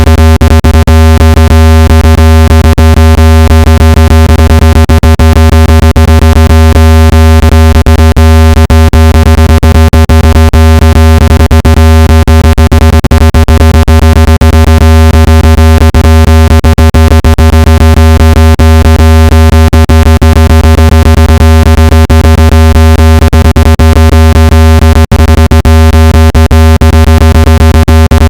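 Loud, steady, low-pitched buzzing tone with many overtones, broken by frequent brief clicks: a generated speaker-cleaning sound meant to vibrate dust and moisture out of a phone speaker.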